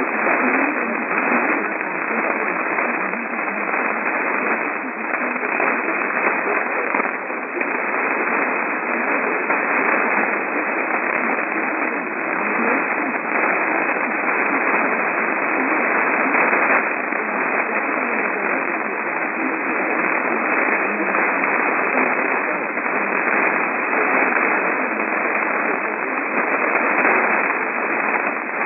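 Radio receiver static: a steady, loud hiss squeezed into a narrow, telephone-like band, with no clear signal coming through.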